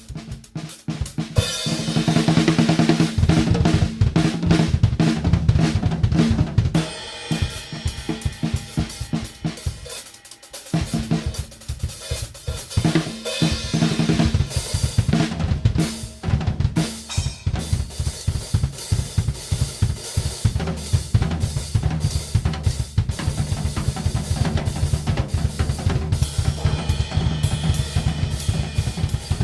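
Drum kit played in a dense, fast pattern: bass drum and snare strokes with hi-hat and crash cymbal wash. The kit has two hi-hats, three crash cymbals and a splash. The playing thins out briefly about a third of the way in, then builds back to heavy cymbal crashes near the end.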